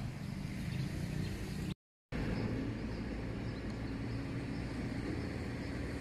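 Steady road-traffic noise, a low rumble with a hiss over it, broken by a brief total silence about two seconds in.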